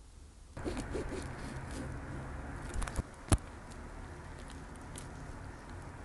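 Hands handling a sauce-soaked fried chicken burger: small crackles and sticky squishes of the bun and breaded cutlet begin about half a second in. One sharp click comes about three seconds in.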